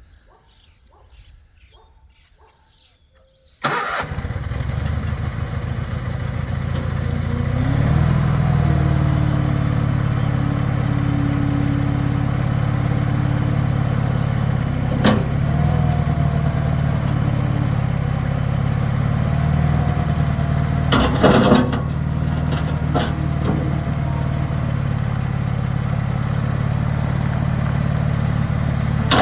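Bobcat 440 skid steer's engine starting abruptly about four seconds in, then running steadily, a little louder and higher from about eight seconds in. A few knocks and clanks come over it, a group of them about two-thirds of the way through.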